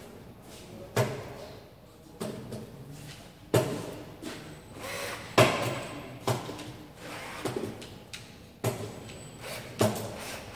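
Repeated sharp metal knocks, roughly one a second at an uneven pace, each ringing briefly, from a steel bracket being worked by hand.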